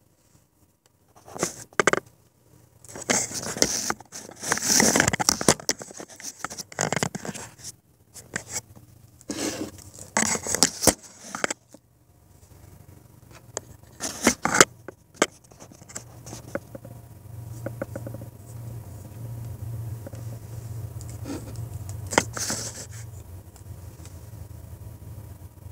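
Handling noise from a camera being set up by hand: rustling, scraping and sharp knocks right at the microphone, busiest in the first half. From about two-thirds of the way through, a low steady hum remains under a few fainter knocks.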